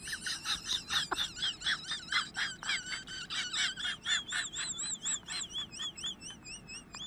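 A rapid run of high, warbling chirps, about three or four a second, each one sliding up and down in pitch.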